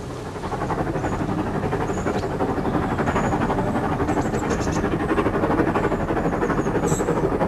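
Steam train running at speed: the locomotive and its coaches make a fast, even beat that grows louder over the first second and then holds steady.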